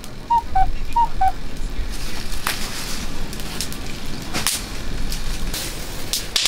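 Firewood crackling in an open fire grill, with a few sharp pops spread through.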